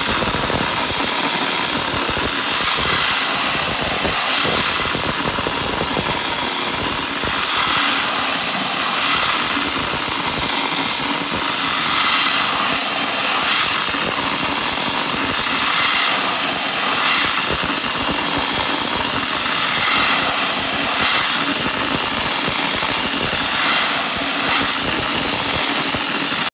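Dry ice blasting nozzle firing compressed air and dry ice pellets against wooden floor joists, stripping the grime. A loud, steady hiss that swells slightly about every second and a half, then cuts off suddenly at the end.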